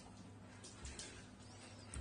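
Quiet room tone with a faint steady low hum and a few faint ticks.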